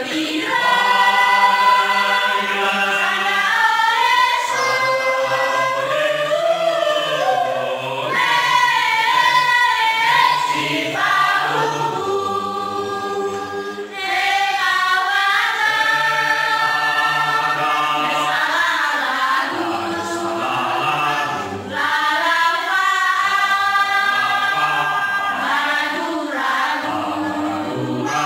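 Mixed choir of women and men singing a church hymn together, in sung phrases with short breaks between them.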